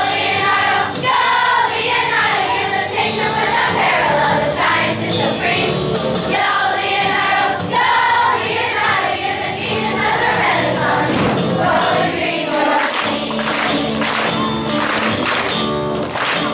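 A children's choir singing a song over instrumental accompaniment.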